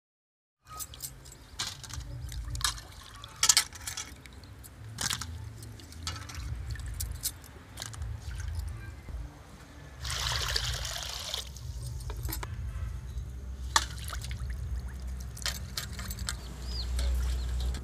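Water sloshing and trickling as pieces of fish are washed by hand in an aluminium pan, with a louder rush of splashing or pouring water lasting a second or so about ten seconds in. Scattered sharp clinks run through it.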